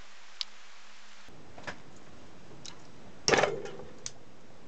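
Faint clicks of hand tools being handled over a small circuit board, then one short, loud clatter about three seconds in, like a tool being set down on the bench.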